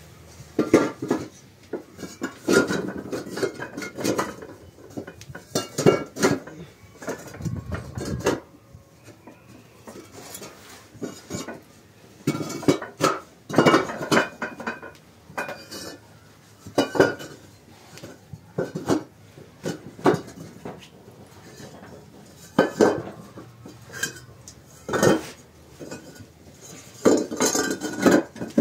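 Hollow clay bricks clinking and knocking against one another and the ground as they are set down and fitted into a row, in irregular clusters of sharp clinks with short pauses.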